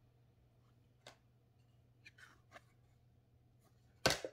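Thick cardboard game cards being handled and swapped between the hands: a few faint clicks and rubs, then a louder brush of card near the end.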